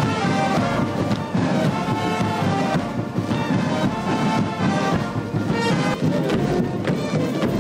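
Music with brass instruments playing steadily.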